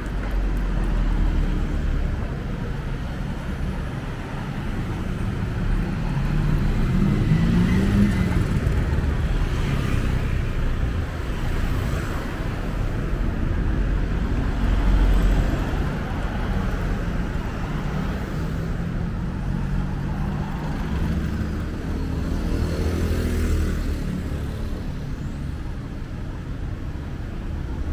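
Street traffic: cars driving past on a city street with a steady low rumble. One vehicle's engine rises in pitch about seven to eight seconds in as it speeds up, and another passes near twenty-three seconds.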